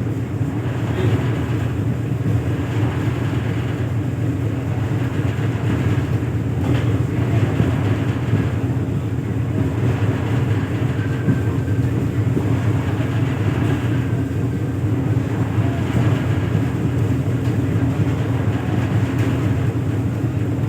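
An engine running steadily: a loud, even, low drone that holds at one pitch with no change in speed.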